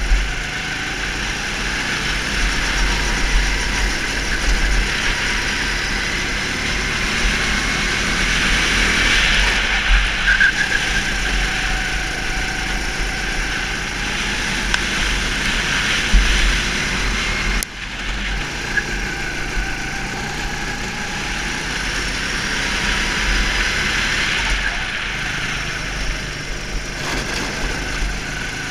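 Go-kart engine running on track, its pitch rising and falling again and again as it accelerates and slows through corners, with wind buffeting the microphone. The engine note drops away sharply for a moment about two-thirds of the way through.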